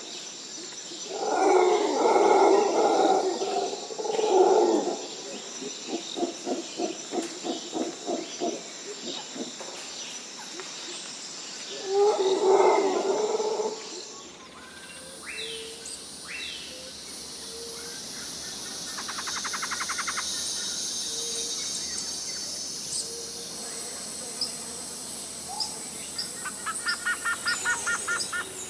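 Jungle birds calling. Loud, coarse calls and a quick run of repeated notes come first. About halfway through, the recording changes to a steady high insect buzz with short falling whistles and rapid trilled calls.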